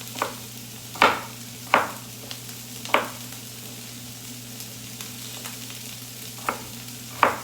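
Vegetables sizzling in oil in a pan as they are stirred, with a utensil knocking against the pan several times in the first three seconds and twice near the end.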